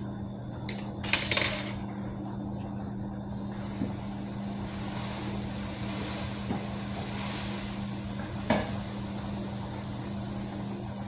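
Kitchen cookware being handled: a loud clatter of pots and utensils about a second in, then a few lighter knocks, over a steady low hum.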